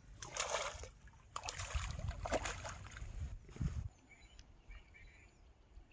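A hooked fish thrashing and splashing at the water's surface while being played on a long pole rod, in irregular bursts over the first few seconds, then quieter.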